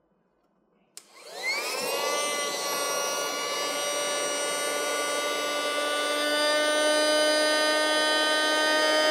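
Small electric air pump switched on with a click about a second in, its motor whining up to speed and then running steadily. It is blowing air under a raw duck's skin to separate the skin from the meat.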